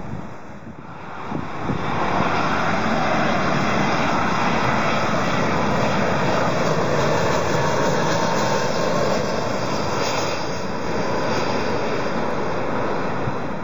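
Jet engines of a United Airbus A320-family airliner on final approach with gear down, a loud steady rushing roar that builds over the first two seconds and holds.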